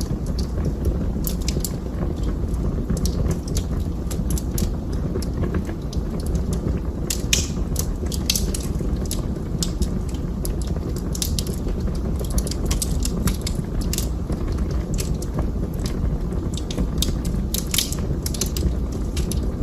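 Wood fire crackling in a fireplace: irregular sharp pops and snaps, several a second, over a steady low rumble of the burning.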